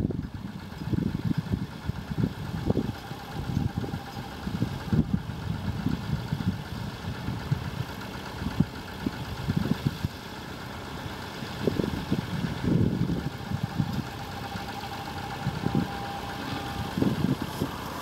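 Vintage tractor engines running as they work a ploughed field, with wind buffeting the microphone in irregular gusts.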